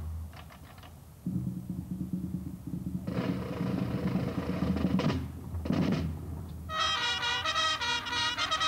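School drum corps playing: drums start up after a brief lull at the start. Near the end, pitched brass notes come in with a quick, detached rhythm.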